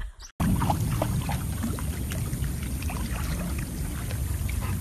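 Pool water sloshing and splashing as a pig paddles in a swimming pool, with small splashes over a steady low rushing noise. It starts about a third of a second in, just after a short sound that is cut off.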